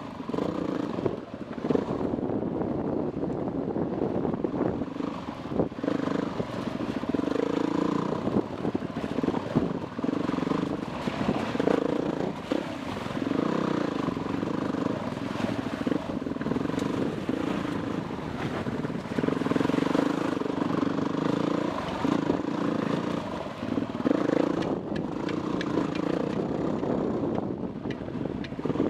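Dirt bike engine running under constantly changing throttle, its note rising and falling every few seconds, with occasional knocks.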